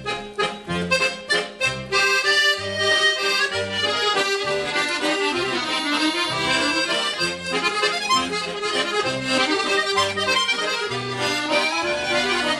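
Intro music led by an accordion over a rhythmic bass line.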